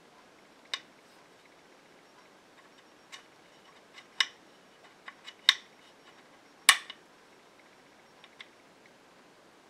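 Irregular sharp clicks and light taps from hands handling an AR-15 lower receiver with its trigger group, about ten in all, the loudest about two-thirds through.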